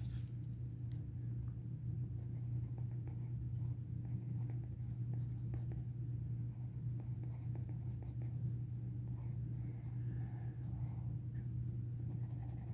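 Pencil lead scratching on paper while a label is written out by hand, with denser shading strokes near the end. A steady low hum runs underneath.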